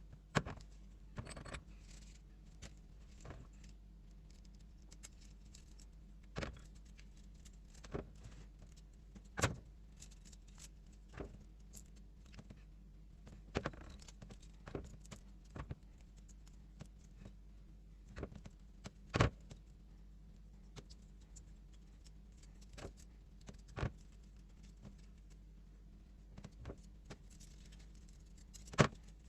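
Irregular clicks and clinks of small metal tools and parts being handled, scattered knocks with a few sharper ones, over a faint steady hum.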